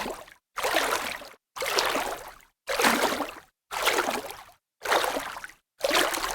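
Water splashing: a string of short, separate splashes, about one a second, each fading and then cut off into silence before the next.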